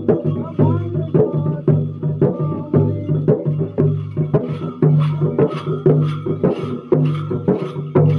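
Jhakri shamans' dhyangro frame drums beaten with curved sticks in a steady dance rhythm, about two to three strokes a second, over a steady low hum.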